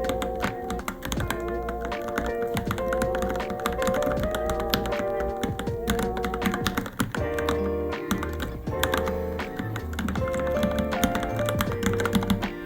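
Continuous fast typing on a Varmilo Minilo mechanical keyboard, a dense run of key clicks with no pauses, over background music with held melody notes and a bass line.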